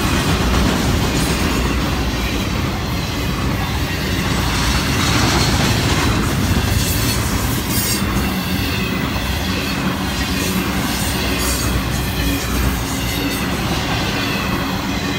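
Intermodal freight train's cars rolling past at close range: a steady rumble of steel wheels on the rail, with clacking as the wheels cross rail joints.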